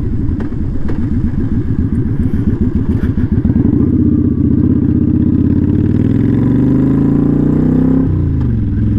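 Kawasaki Vulcan 900 Custom's V-twin engine, fitted with a Vance & Hines slip-on exhaust, pulling away under throttle. Its note rises steadily in pitch for several seconds, then falls sharply near the end.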